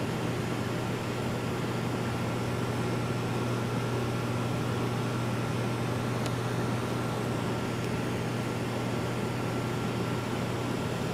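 A steady low mechanical hum under an even hiss, with a faint high tone held throughout.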